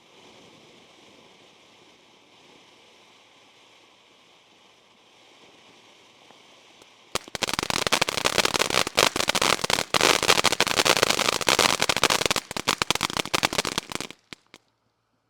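Ground firework fountain burning with a faint steady hiss, then breaking about seven seconds in into a loud, dense run of rapid crackling pops that lasts about seven seconds. The sound then cuts off abruptly.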